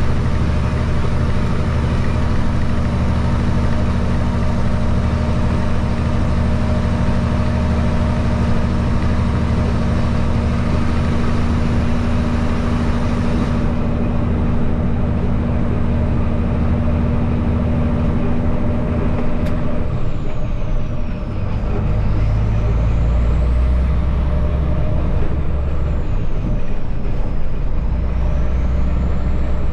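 Peterbilt truck's diesel engine pulling steadily under way, heard from inside the cab with road noise. About twenty seconds in the engine note drops out briefly and comes back at a lower pitch, as the driver shifts gears.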